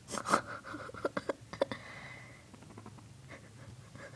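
Guinea pig purring, heard as short rumbles, irregular clicks and scratchy scuffs. The loudest clicks come in the first half second, with a few more about a second in.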